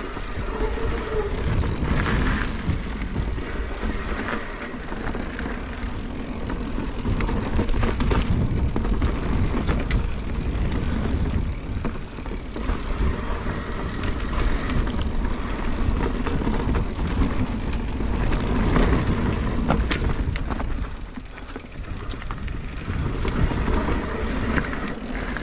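Mountain bike riding down a dirt trail: a steady, noisy rumble of tyres on dirt and air rushing past, with scattered short knocks and rattles as the bike goes over bumps. The loudness rises and falls, easing briefly near the end.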